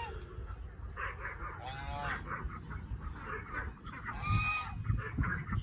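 Domestic geese honking among other farmyard fowl, with two louder calls about two seconds and four and a half seconds in over steady chattering.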